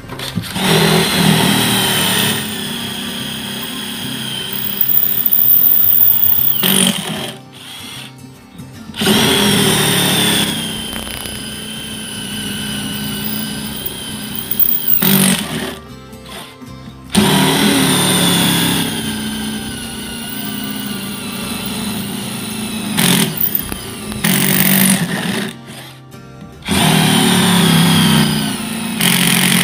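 Ridgid 18V cordless impact wrench drilling into solid clay brick with a four-edged multipurpose bit. It runs in several long bursts of about six seconds, with short pauses between, and a whine that dips slightly in pitch as each burst starts.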